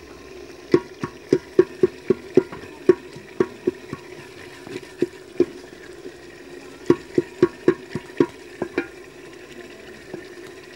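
Long wooden spoon stirring a simmering onion-tomato masala in an aluminium pot over a steady sizzle. The spoon knocks against the pot's side in two runs of sharp taps, about three a second, with a few single taps between.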